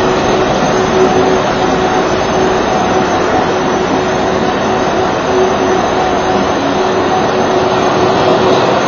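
Ice resurfacer running as it crosses the rink: a steady machine drone with a faint hum, no change in level.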